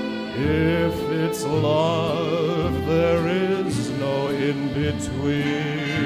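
Swing-era dance band music: a melody line with heavy vibrato over a bass line.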